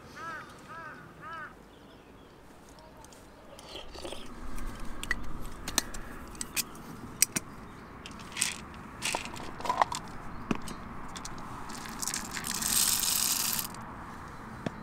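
A crow cawing a few times, then a run of sharp clicks, clinks and scraping of objects being handled. A hiss lasts about a second and a half near the end.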